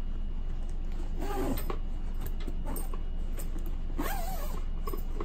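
Hands rubbing and smoothing a non-woven fabric garment bag: two short spells of rustling, about a second in and about four seconds in, each with a brief wavering squeak, over a steady low hum.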